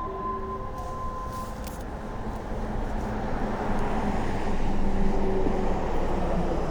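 Road traffic running past, a dense low rumble that swells to its loudest about two-thirds of the way through. Over it, the last note of an outdoor public-address loudspeaker chime rings on and fades out in the first second and a half.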